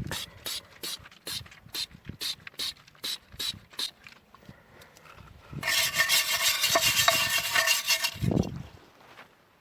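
Tool work on a car: a run of sharp clicks, about three a second, then about five and a half seconds in a power tool runs loudly for about two and a half seconds and stops.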